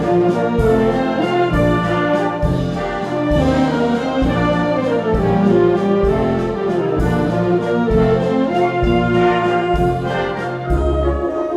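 A wind band playing with brass to the fore, trumpets and trombones carrying the melody over a pulsing bass line of short, evenly repeated low notes.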